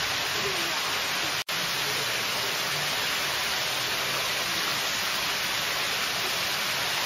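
Steady, even hiss, strongest in the high range, broken by a split-second dropout about a second and a half in.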